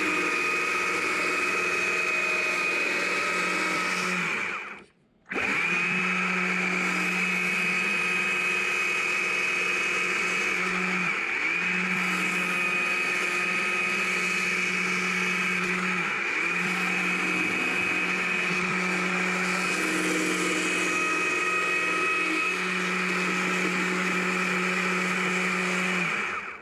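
Small two-stroke gas chainsaw running at high revs as it shapes and scrapes a frozen log, a steady tone with short dips in pitch as the chain loads up. It cuts out briefly about five seconds in, then carries on.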